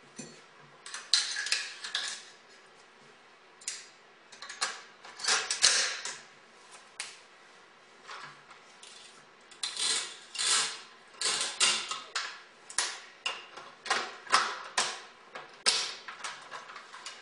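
AR-15 rifle being reassembled at speed: metal parts clicking, clacking and rattling together in quick irregular clusters, with short pauses between.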